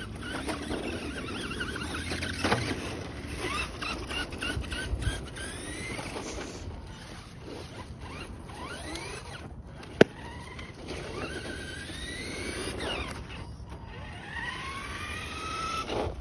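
RC monster truck's motor whining, rising in pitch again and again as the truck accelerates and backs off. A single sharp click about ten seconds in.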